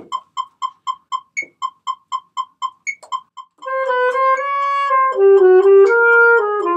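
Metronome clicking out a subdivided beat, about four clicks a second with a higher accented click every second and a half. About halfway through, an alto saxophone comes in playing a slow melody over it.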